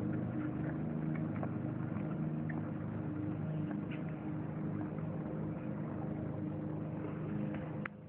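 A motor or engine runs with a steady, even hum, then cuts off abruptly near the end.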